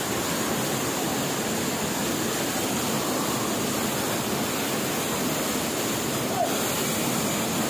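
Steady rush of a fast, swollen stream tumbling over rocks in a small cascade.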